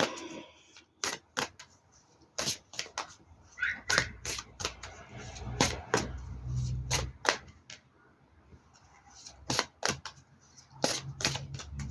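Scattered sharp clicks and taps at irregular intervals, from card decks and their boxes being handled on a table, with a faint low hum under them.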